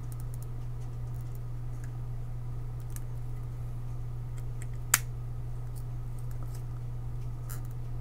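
Faint scattered clicks and scrapes of tweezers and needle-nose pliers working the small metal grounding tabs on a calculator's circuit board, with one sharp click about five seconds in, over a steady low hum.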